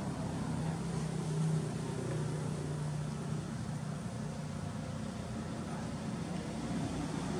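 A motor engine running steadily, giving a low even hum over outdoor background noise.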